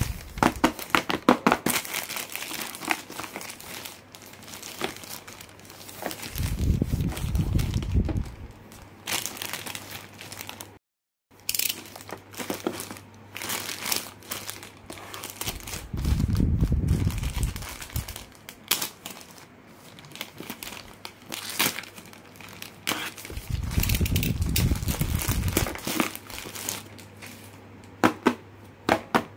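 Yellow plastic poly mailer bag crinkling and crackling as it is handled and opened by hand, with three stretches of low rubbing noise of a couple of seconds each. The sound cuts out completely for a moment about 11 seconds in, and sharper clicks come near the end.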